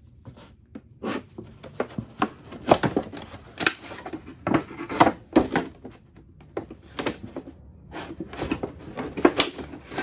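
Benchmade Claymore knife blade cutting through a thin plastic milk jug, the plastic crackling and snapping in quick, irregular clicks, with a short pause about six seconds in.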